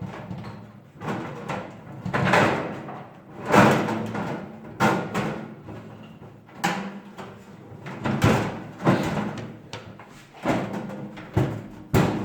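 Knocks and clanks of an electric oven's sheet-metal casing and parts being handled and fitted back into place during reassembly, about ten sharp irregular hits with rattling in between.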